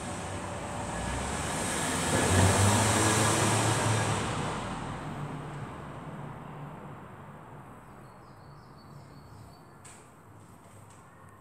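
A motor vehicle passing by: its noise swells over the first few seconds, peaks, and then fades away.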